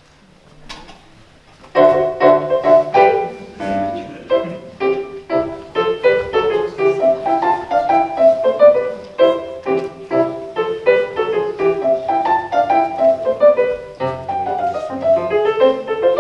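Piano-led music starting abruptly about two seconds in and playing on in quick, busy notes.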